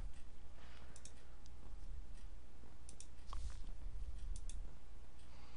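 A few faint computer clicks, some in quick pairs, over a low steady hum of microphone or room noise.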